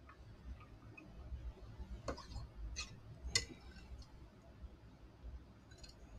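Quiet sharp clicks of a metal stirring tool tapping against a cup of liquid soft plastic as it is mixed. There are three about two to three seconds in, the last the loudest, then a few lighter ticks near the end.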